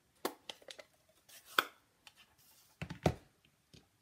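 A plastic ink pad case being handled, opened and set down on a desk: a string of clicks and taps. The sharpest click comes about one and a half seconds in, and a heavier knock about three seconds in.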